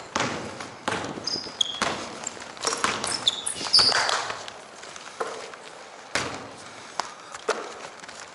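A basketball bouncing on a hardwood gym floor about once a second, with footsteps and short, high sneaker squeaks on the court, the squeaks mostly in the first half.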